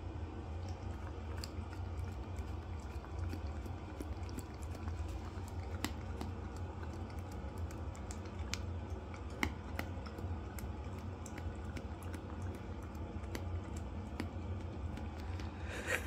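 A dog's mouth noises close to the microphone: irregular small wet clicks of licking and chewing, a few a second, over a steady low hum, with one louder short noise near the end.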